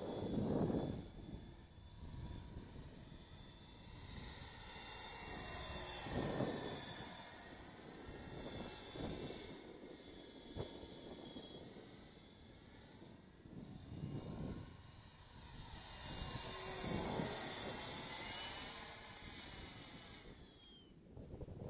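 Whistle-modified 70 mm electric ducted fan of an RC Eurofighter park jet whining in flight as the jet passes back and forth, a steady high whistle. Its pitch steps up late on and drops away near the end. Low rushing surges come and go and are at times louder than the whine.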